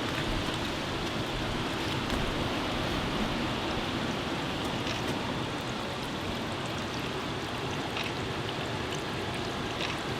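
Floodwater rushing steadily through a creek, a continuous even wash of running water.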